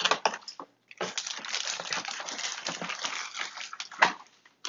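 Plastic bag crinkling and cardboard packaging rustling as a plastic-wrapped helmet is lifted out of its box, broken by a brief pause about half a second in, with a sharp knock about four seconds in.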